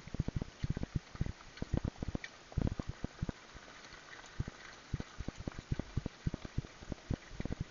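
Hoofbeats of a harness horse pulling a sulky on a dirt track, heard close up from the driver's seat: a quick, uneven run of dull thuds, several a second.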